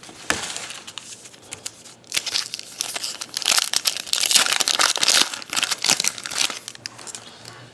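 Wrapper of a Panini Threads football card pack being torn open and crinkled, loudest in the middle stretch.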